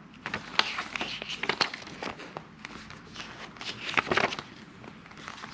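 Pages of a small paper booklet being flipped and handled: a run of short papery rustles and flicks, busiest about a second in and again about four seconds in.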